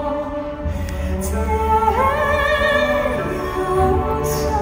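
A live song performance: a high, operatic-sounding voice sings over instrumental accompaniment, with a note about two seconds in that rises and is held with vibrato.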